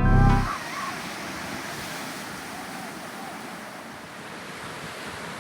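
Music ends about half a second in, then ocean surf: a steady wash of breaking waves.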